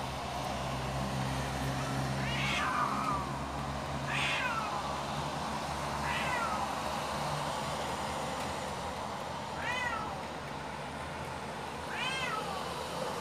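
Street cats yowling at one another in a standoff: five drawn-out calls a couple of seconds apart, each sliding down in pitch.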